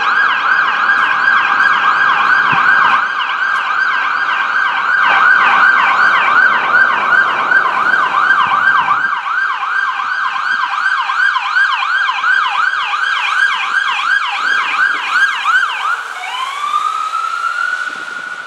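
Emergency vehicle siren on a fast yelp, sweeping up and down several times a second. Near the end it switches to a slow rising wail that holds high. Low road-traffic rumble lies beneath it for about the first half.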